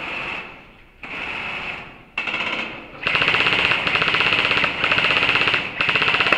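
Airsoft guns firing on full auto in rapid bursts: three short bursts, then a long burst of nearly three seconds and another short one near the end.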